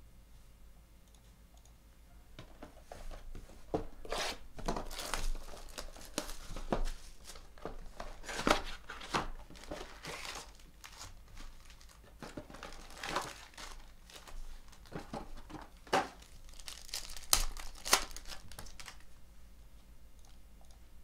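Hands unwrapping and opening a sealed Panini Select basketball card box: plastic wrap tearing and crinkling in quick irregular bursts from about two and a half seconds in, then foil card packs rustling as they are taken out.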